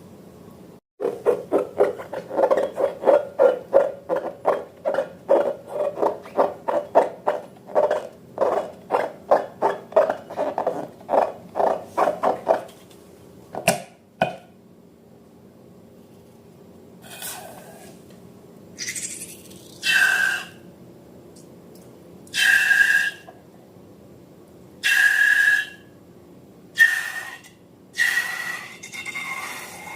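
Slime being worked by hand, a quick run of wet, sticky squishes and clicks, about three or four a second, for some twelve seconds. After a pause comes a series of separate squeaky rasps, each under a second long.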